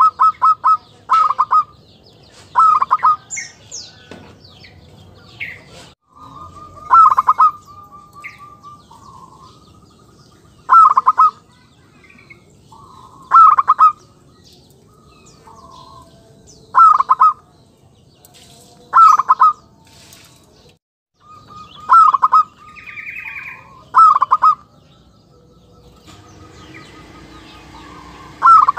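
Caged decoy zebra dove (perkutut) calling: clear, crisp cooing phrases of quick pulsing notes, repeated every two to four seconds, with a softer trill between some of them.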